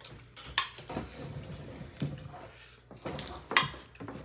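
A few sharp clicks and soft knocks from eating at a dinner table, the loudest pair a little past three seconds in.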